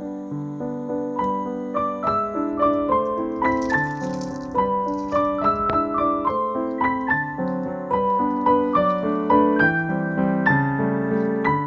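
Background piano music: a steady run of gently played piano notes.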